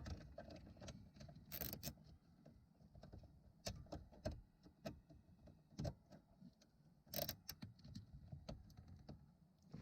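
Faint rustling of wiring and plastic parts being handled, with a few sharp clicks and rattles as a zip tie is worked around a wiring bracket.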